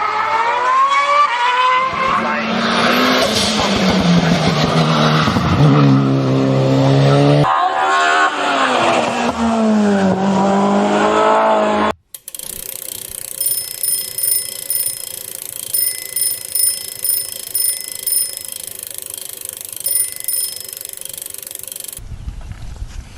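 A motor vehicle engine revving, its pitch rising and falling repeatedly for about twelve seconds, then cutting off abruptly. A quieter steady hum follows with short high beeps repeating at a regular pace.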